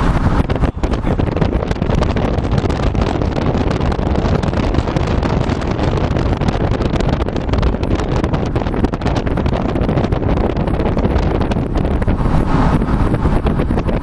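Wind buffeting the microphone: a loud, steady, low rumbling noise with constant flutter.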